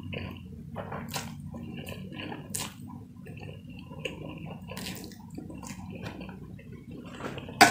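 Slurping and chewing of a mouthful of fried instant noodles: wet mouth smacks and sucking clicks, close to the microphone. A single sharp knock near the end is the loudest sound.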